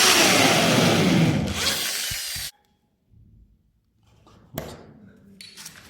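Electric drill boring a small test hole through a wooden floorboard to find the joist beneath, its motor pitch sliding up and down. It fades and cuts off about two and a half seconds in, and a few faint knocks follow.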